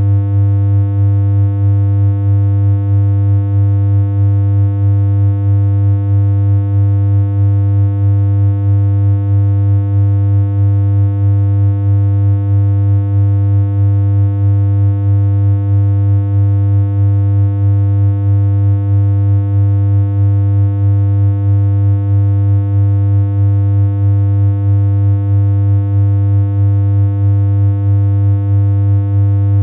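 A steady, unchanging low synthesized hum: one held electronic tone with a buzzy, reedy edge and a slight, even wobble in loudness.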